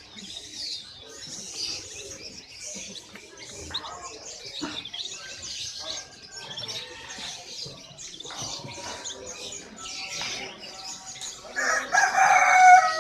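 Many caged songbirds chirping and twittering at once, a dense overlapping chatter of high calls. A louder pitched sound comes in about a second before the end.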